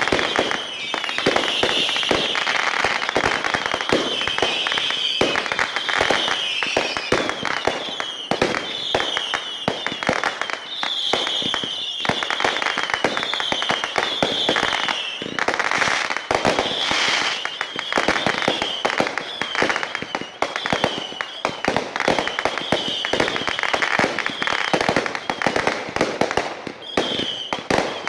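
Fireworks going off without a break: a dense run of rapid bangs and crackles, with short high falling whistles repeating about once a second.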